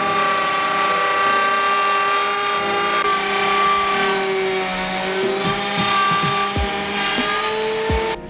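Handheld plunge router running at high speed as it is guided over a white panel, a loud steady whine with overtones. Its pitch sags briefly near the middle and then recovers. It stops abruptly near the end.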